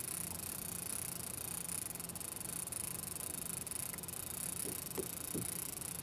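Steady low background hiss with a faint hum, and a few soft, brief sounds about five seconds in.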